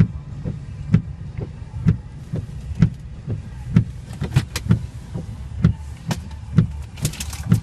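Inside a truck cab: a low steady hum with a dull thump repeating about once a second, and a short rushing hiss near the end.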